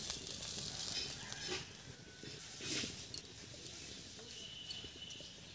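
Faint scrapes and light knocks of a spatula against a metal kadai as the cooked cauliflower-leaf paste is turned out onto a plate, growing quieter toward the end.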